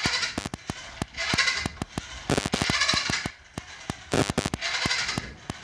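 Cheap plastic toy RC truck rolled back and forth by hand, its wheels and drivetrain giving a rapid clicking rattle in about five pushes; this is the noise that makes it annoying and noisy to play with.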